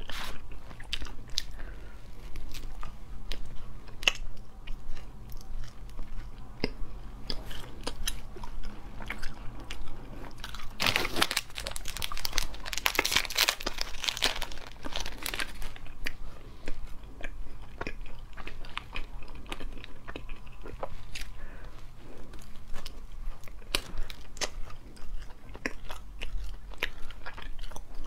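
Close-up crunching and chewing of snowflake crisp, a crunchy marshmallow-and-biscuit nougat bar. About eleven seconds in, a thin plastic wrapper crinkles loudly for several seconds as a new piece is unwrapped.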